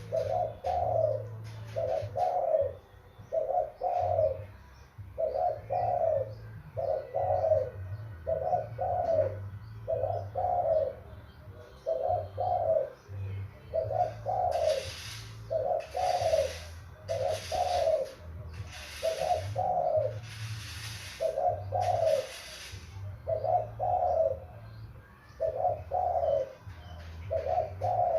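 A young decoy dove cooing over and over, about one short coo a second, as it does its circling display. A higher, hissing sound repeats about six times in the middle of the stretch.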